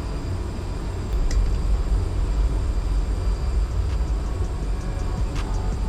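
Steady low rumble of ship's machinery, with a few small clicks from the contactor parts being handled about a second in and again near the end.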